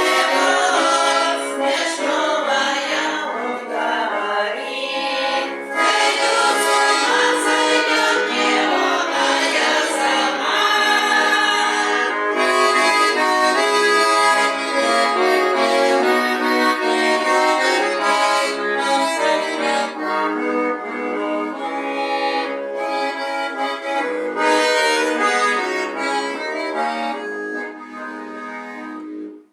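Accordion playing an instrumental passage of a Russian folk song, full chords and melody with no voices, getting quieter near the end.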